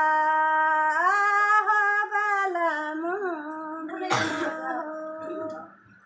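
A woman singing unaccompanied in long held notes with slow wavering glides. Her voice stops shortly before the end, and a short burst of noise breaks in about four seconds in.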